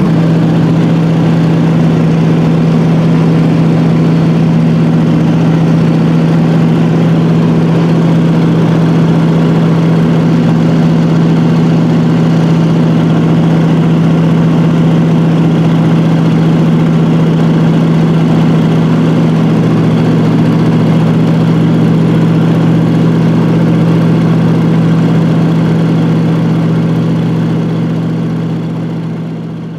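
Floatplane's piston engine and propeller droning steadily in flight, heard from inside the cabin. The drone fades out near the end.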